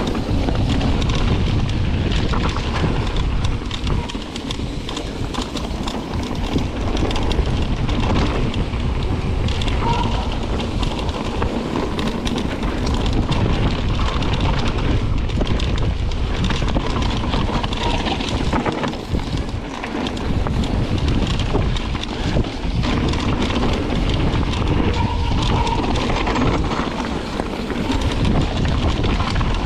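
Wind buffeting an action camera's microphone while riding a mountain bike down a dirt singletrack, over the steady rumble of tyres rolling on the trail.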